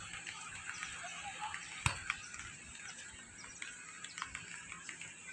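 Street ambience in light rain: a steady hiss with scattered small ticks and taps, and one sharper click about two seconds in.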